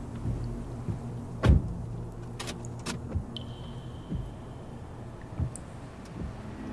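Scattered knocks and clunks over a low steady hum, the loudest about a second and a half in, with a faint high whine held for about a second near the middle: a sound-effects bed between music tracks, like a vehicle or door being handled.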